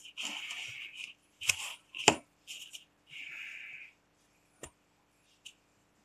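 Close handling noise of a plastic cup being held and moved: short scratchy rustles and several sharp clicks and knocks, the loudest about two seconds in, over a faint steady hum.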